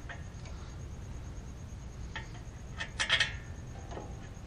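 Metal clicks and clinks from the front brake caliper and its bolts as they are handled by hand on a Toyota 4Runner's front brake. A few single clicks are followed about three seconds in by a quick cluster of sharper, louder clicks.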